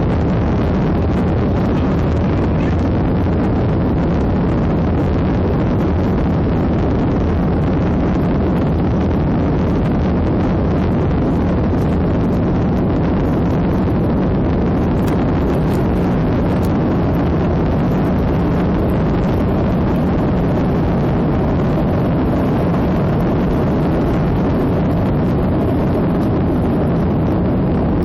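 Passenger jet airliner's engines running on the runway: a loud, steady rumble with a rushing roar and no pauses.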